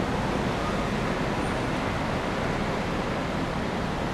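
Steady street traffic noise: a continuous, even rumble with no distinct events.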